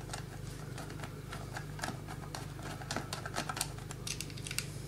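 Light, irregular clicks and taps of a screwdriver and small metal parts being handled while the projector is taken apart, over a steady low hum.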